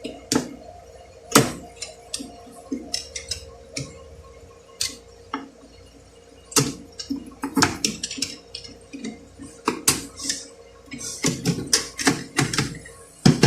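Irregular metallic clicks and clinks of steel automatic-transmission parts knocking together as a one-way roller clutch is pressed into place by hand.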